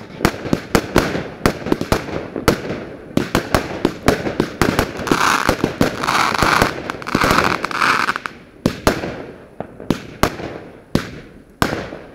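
Fireworks display: a rapid string of sharp bangs from exploding shells, each trailing off in echo. About five seconds in they merge into a dense hissing crackle for roughly three seconds, then separate bangs go on.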